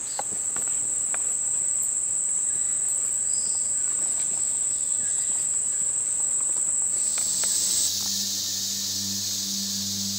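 Steady high-pitched insect drone from the tropical forest, with a few faint clicks. About eight seconds in the drone gives way to a broader hiss and a low steady hum.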